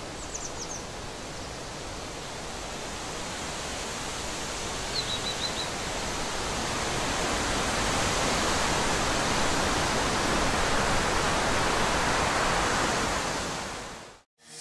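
A steady rushing noise, like wind or running water, that slowly grows louder and then fades out near the end. A few short high chirps come near the start and again about five seconds in.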